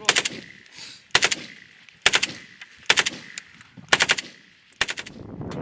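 Automatic gunfire fired close by in short bursts: six bursts of a few rapid shots each, about one burst a second, each followed by a brief echo.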